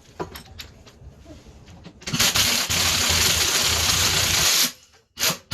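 Loud steady hiss lasting about two and a half seconds that starts and stops abruptly, followed near the end by a quick run of short hissing bursts, about three or four a second.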